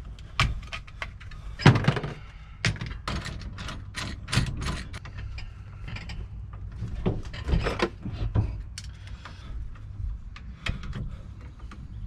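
Irregular clicks, knocks and light scrapes of a hand tool working on the steering column of a Grumman LLV mail truck as the turn signal switch is worked loose, over a low steady hum.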